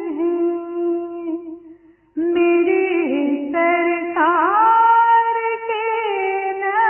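A woman singing an Urdu devotional naat without words clear enough to transcribe, holding long notes with a wavering, ornamented pitch. She breaks off briefly about two seconds in, then comes back in and sustains the melody.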